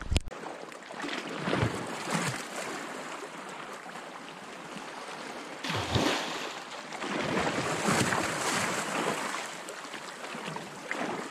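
A European sea bass strikes a surface lure with a sudden splash about six seconds in, then the hooked fish thrashes at the surface for a few seconds; low lapping water throughout and a couple of sharp knocks right at the start.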